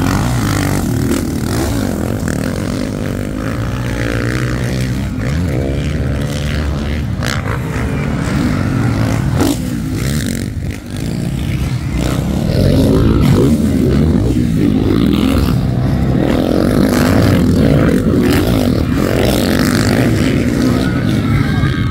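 Motocross dirt bikes racing on a dirt track, several engines running at once and revving up and down as the riders work through the course.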